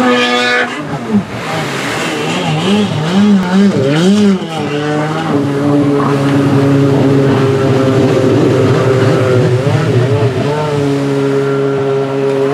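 Stand-up jet ski engine revving up and down in quick swells, then holding steady high revs for several seconds, and wavering again near the end.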